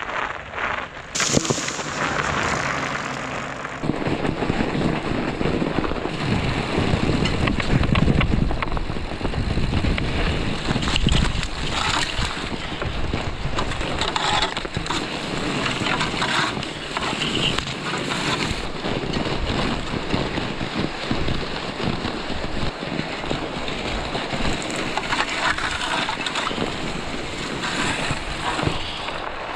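Fat bike riding over snow and frozen lake ice: a continuous rough rush of wind on the action camera's microphone and fat tyres rolling on snow, with scattered crackles.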